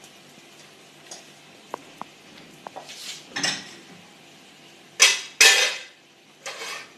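Serving spoon clinking and scraping against cookware as cooked oats are dished out: a few light clinks, then louder scrapes near the end.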